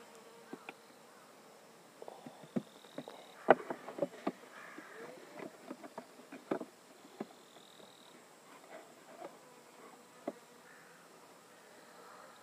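Scattered clicks and knocks of small wooden frame pieces being handled and fitted together, thickest in the first half, one sharp knock the loudest. A flying insect buzzes faintly behind them.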